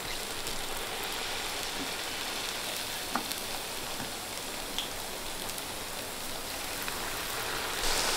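Batter- and semolina-coated breadfruit slices deep-frying in coconut oil: a steady sizzle, which grows louder just before the end.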